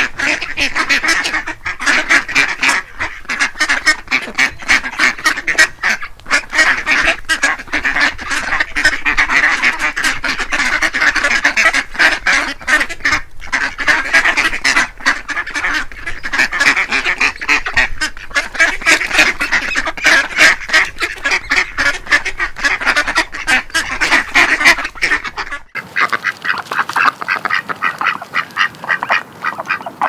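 A flock of ducks quacking continuously, many calls overlapping in a rapid, loud chatter. About 26 s in there is an abrupt cut to another stretch of calling with a thinner sound.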